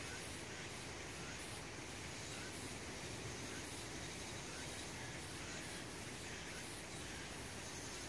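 Summer forest insects calling in a steady chorus with an uneven high pulsing and a faint short chirp that recurs every second or so.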